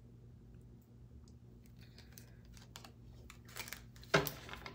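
Tarot cards being handled and shuffled by hand. Almost nothing at first, then a run of light clicks and card flicks that grow louder near the end.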